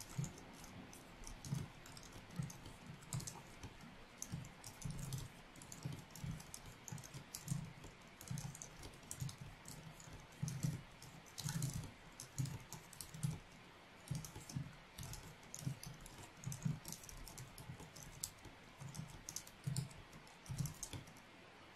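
Fast touch-typing on a Logitech MX Keys wireless keyboard's low-profile scissor-switch keys: a rapid, uneven run of quiet keystrokes, each a soft click with a low thud as the key bottoms out.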